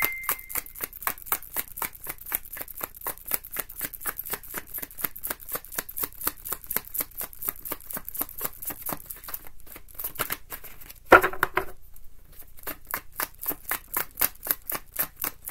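A tarot deck being hand-shuffled overhand: quick, even card flicks about five a second, pausing briefly twice, with one louder knock about eleven seconds in. A brief high beep sounds at the very start.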